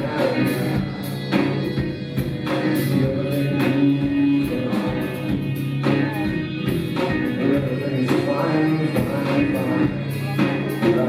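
Live rock band playing, drums keeping a steady beat under a held bass line and guitar.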